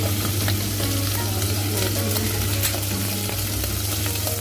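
Butter sizzling as it melts in a stainless steel pot: a steady hiss with scattered sharp pops. A steady low hum runs underneath.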